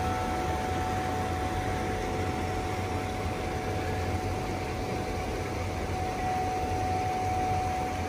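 Steady rush of water from small cascades pouring into a rock pool, an even noise with no breaks, with a few faint held tones above it.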